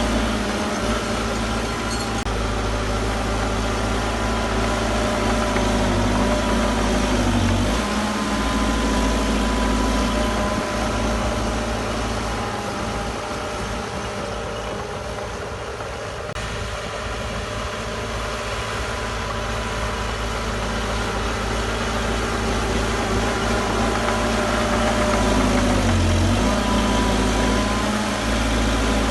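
Diesel engine of heavy earthmoving machinery running steadily, easing off a little about halfway through and building up again toward the end.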